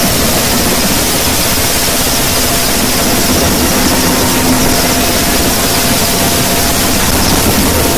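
Loud, steady helicopter noise heard from inside the cabin with the door open: engine and rotor running evenly while the helicopter holds a hover.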